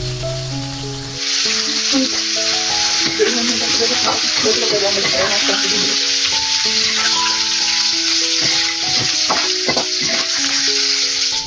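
Hot oil sizzling as shallots, red chillies and scallions fry in a metal wok, with a metal spatula and a wire strainer scraping and clinking against the pan. The sizzle comes in about a second in, over background music.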